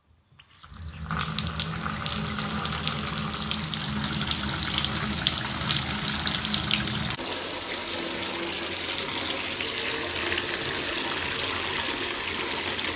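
Bath tap running full into a filling bathtub, the stream splashing into the water already in the tub. It comes in about a second in and holds steady, easing a little about seven seconds in.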